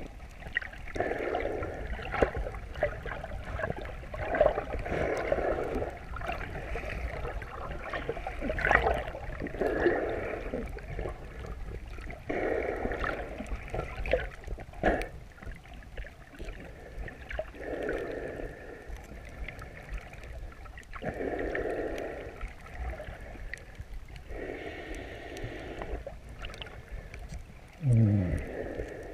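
A snorkeler breathing slowly and steadily through a snorkel, recorded underwater: muffled breaths about every three to four seconds, with scattered sharp clicks. Near the end comes a louder, low sound falling in pitch.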